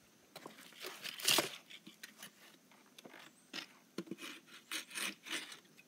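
Irregular crunching and scraping of movement over rocks and dry fallen leaves, a string of short uneven strokes with the loudest about a second and a half in.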